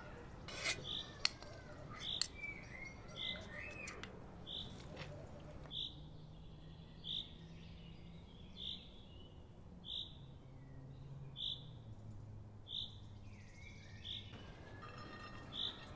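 A bird chirping, one short high chirp repeated about every second and a half. In the first two seconds a metal spatula knocks and scrapes sharply against a metal cooking pot a few times while stirring rice.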